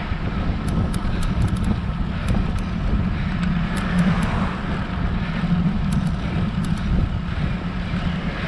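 Steady wind and road noise from a road bike climbing a hill, mixed with the steady low hum of motor traffic.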